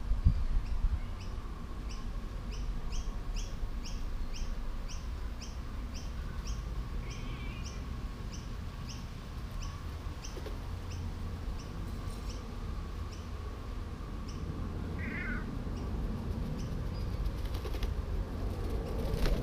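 An animal calling: a run of short, high, evenly spaced calls, about two or three a second, that stops after about twelve seconds, with a couple of brief chirps later.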